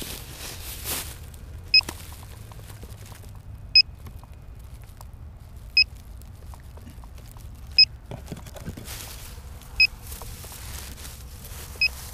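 A short, high electronic beep repeats once every two seconds, six times, from the downed quadcopter's electronics as it sits idle in the grass. Faint wind rumble and light rustling of grass run underneath.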